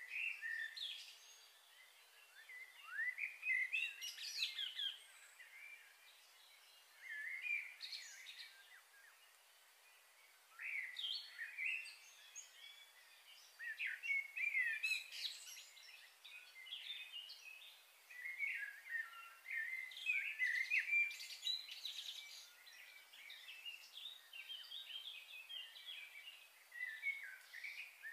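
Birds chirping and singing in short bursts of quick, high notes every few seconds.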